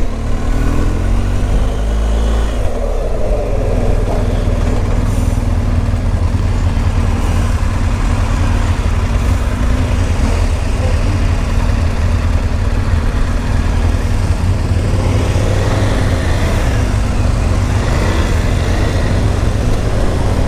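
Motorcycle engine pulling away and then running steadily under way. Its note shifts in the first couple of seconds, over a deep, even rumble.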